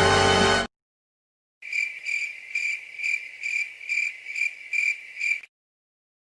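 A music cue cuts off under a second in; after a second of silence, crickets chirp in a steady, even rhythm of about two chirps a second for roughly four seconds, the stock 'awkward silence' comedy sound effect.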